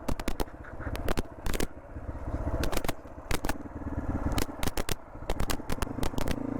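Motorcycle going down a rough dirt trail, engine running low in gear, with many sharp knocks and rattles from the bike jolting over the uneven ground.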